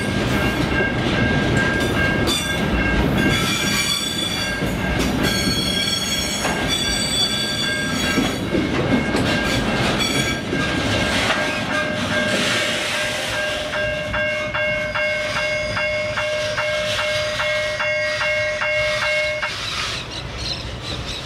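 Container freight wagons rolling past on the rails, with high-pitched wheel squeal coming and going through the first half. From about twelve seconds in a steady whine with about three light ticks a second runs on, then stops shortly before the end as the last wagon moves away.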